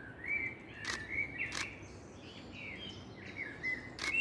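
Small woodland birds chirping and singing in short notes that slide up and down, over a steady background rush. Three sharp clicks come about a second in, a second and a half in, and near the end: a camera shutter firing.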